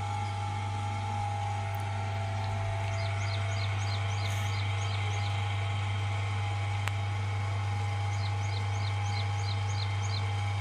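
Electric potter's wheel running, a steady low hum with a higher whine. A small bird chirps in two quick runs of about five chirps a second over it, and there is a single click near the middle.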